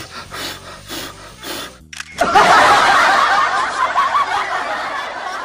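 Canned audience laughter, many voices together, bursting in loud about two seconds in and slowly fading. Before it, light background music with a soft beat about twice a second.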